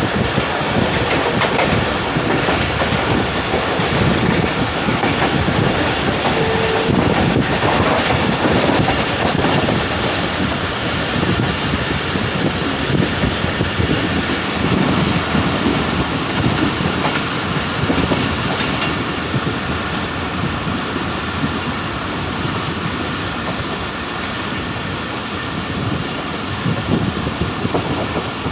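Passenger train running along the track, heard from on board: a steady rumble of the coaches with the wheels clattering over the rail joints.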